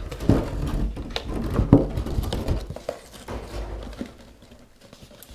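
Knocks, clicks and rustling from a plastic miniature model and its packaging being handled, busiest in the first three seconds and quieter after.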